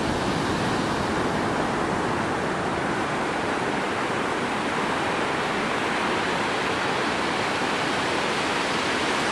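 Ocean surf breaking and washing up a sandy beach, a steady, even wash of noise.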